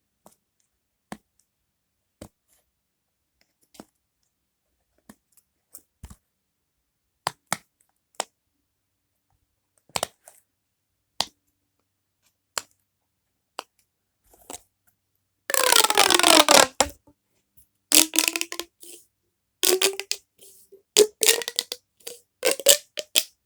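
Small plastic fidget toys being handled: scattered single clicks and taps, then about fifteen seconds in a loud crinkling rustle, followed by more busy rustling and clicking.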